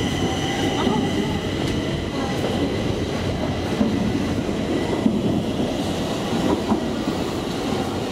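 Steady low rumble of metro trains in an underground station, with a high whine of several steady tones that fades out about five seconds in.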